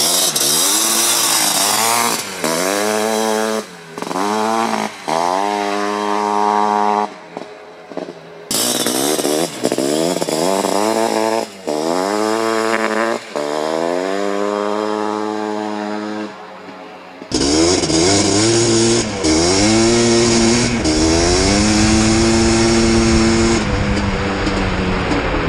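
Two-stroke sport quad engines revving hard through the gears: the pitch climbs steeply, drops briefly at each upshift and climbs again, about four shifts per run. The sound cuts to a different quad about eight seconds in and again about seventeen seconds in; the last one has a deeper, heavier exhaust note.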